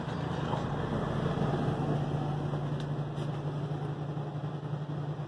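A steady low mechanical hum with a wash of noise over it, like an appliance or ventilation unit running, with a few faint ticks.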